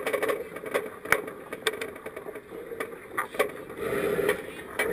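Steady rush of water and wind on a small racing sailboat under way, with scattered knocks, clicks and scrapes from the deck gear and crew close to the on-board camera.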